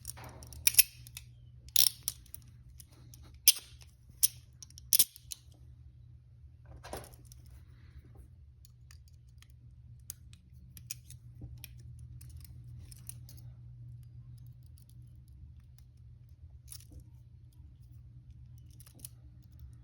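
Sharp clicks and clacks of small hard objects being handled, about five loud ones in the first five seconds, then fainter scattered clicks over a steady low hum.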